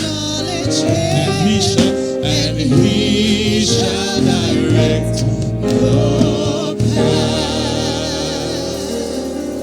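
Gospel worship song: singers with vibrato over a band, settling into a long held final chord that fades in the last few seconds.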